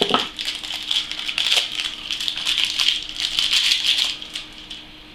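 Small metal water-cooling compression fittings rattling and clinking together as they are handled, a quick jumble of clicks that stops about four seconds in.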